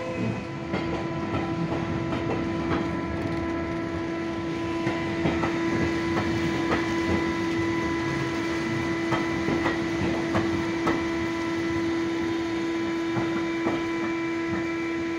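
Railway coaches on the platform road, their wheels giving scattered clicks over the rail joints, over a steady unchanging hum.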